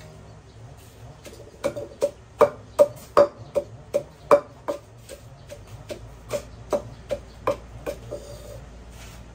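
Wooden pestle pounding in a mortar: a steady run of dull knocks, about two to three a second, starting about a second and a half in, heaviest in the middle and lighter towards the end.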